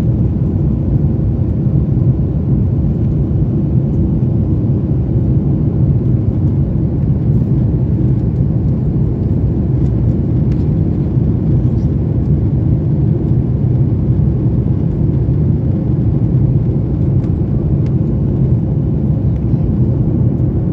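Steady low drone inside the passenger cabin of a Boeing 737 MAX 8 climbing after takeoff: its CFM LEAP-1B engines and the airflow over the fuselage, unchanging in level.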